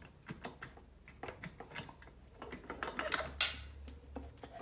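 Small clicks and clinks of metal parts being handled on the top end of a 50cc two-stroke moped engine as the cylinder head is worked loose, with a louder clatter about three seconds in.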